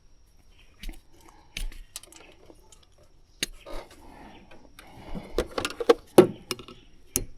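Scattered light clicks and knocks of small plastic and metal parts being handled: fuel filter caps and hose fittings being worked by hand. They come more often and a little louder in the second half.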